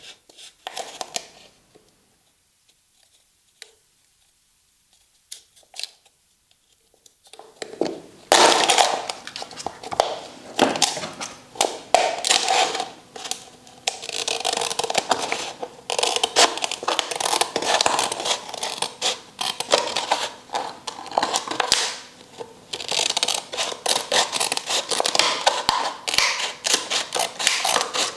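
Utility knife cutting through a disposable plastic cup: the blade scrapes and crackles through the thin plastic with many small clicks. It starts about eight seconds in, after a near-silent stretch with a few faint clicks.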